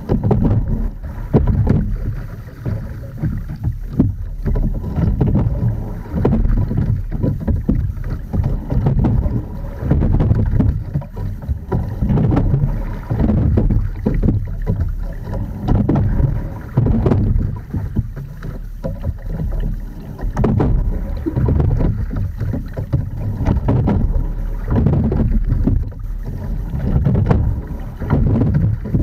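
Edon TS515 sculling boat being rowed: water washing along the hull and oars working through the water, surging about every two seconds with each stroke, with short knocks from the oars and rigging. Wind buffets the microphone.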